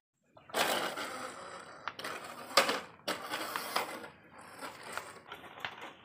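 Plastic toy vehicles being handled and rolled on a rough concrete floor: a grinding, rattling clatter with several sharp clicks, easing off near the end.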